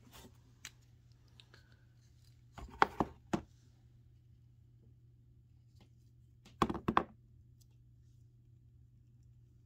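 Handling noises as a painted balsa crankbait is wrapped in mesh netting: two short clusters of clicks and light knocks, about three seconds in and again near seven seconds, with a few single ticks between, over a faint steady hum.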